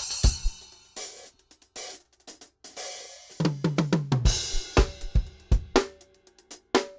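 Drum kit solo played with sticks: cymbal crashes, a fast run of tom strokes about three and a half seconds in that ends on a crash, then a steady pattern of bass drum and drum hits.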